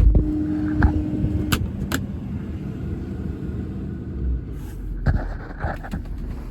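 Ford 6.7 Power Stroke diesel running in a heavy service truck, with a steady hum that stops about a second and a half in and a lower note that stops near four seconds, leaving a low rumble. A loud thump at the start, then a few sharp clicks.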